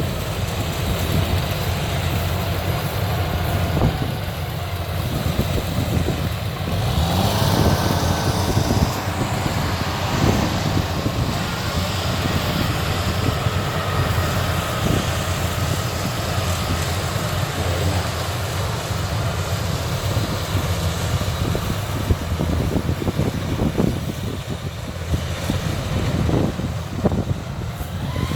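Rice combine harvester running: a steady engine drone with a dense rattle, and a brief hiss about seven seconds in.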